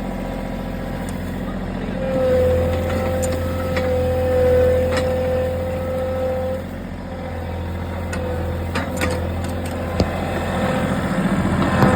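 Engine of the vehicle pulling a homemade roller crimper through a paddock, running steadily, with a strong steady whine that comes in about two seconds in and fades after about six. A few sharp knocks near the end.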